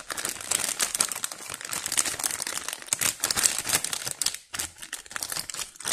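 Clear plastic packaging bag crinkling and rustling in irregular, dense crackles as an amplifier board is worked out of it by hand.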